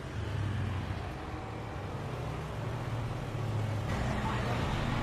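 A motor vehicle engine running steadily with a low hum, amid street traffic noise that grows a little louder near the end.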